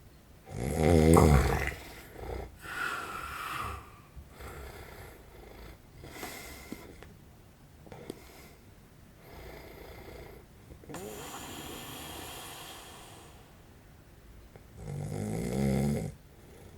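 A man in his forties snoring in his sleep: a loud snore about half a second in, then quieter snorts and breaths, a long exhale, and a second loud snore near the end. He is a sleeper with sleep apnea.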